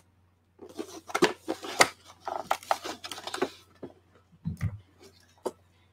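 Cardboard and plastic toy packaging being pulled and torn open by hand: a dense run of crackles and scrapes, then a few scattered clicks and a dull thump about three quarters of the way through.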